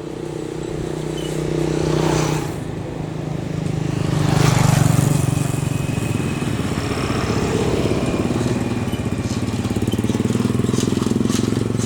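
Road traffic: vehicle engines running steadily, with vehicles passing close by about two and four and a half seconds in.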